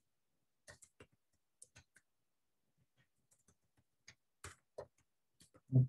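Computer keyboard keys clicking in short, scattered keystrokes, a few at a time with pauses between.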